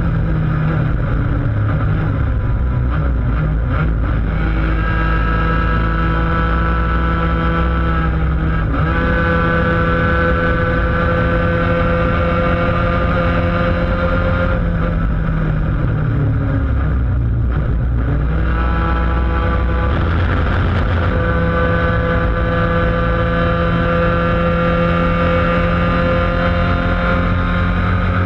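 Laydown enduro racing kart's engine running hard at high revs, heard onboard. The revs fall away for a few seconds near the middle as the kart slows, then climb steadily again to the end.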